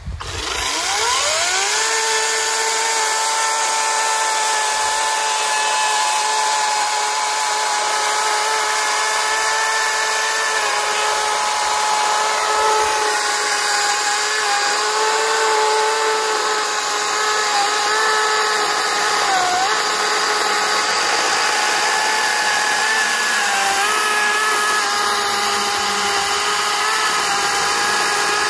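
Electric chainsaw spinning up to speed over about two seconds, then running with a steady whine while it cuts a large log. Its pitch sags briefly now and then under load.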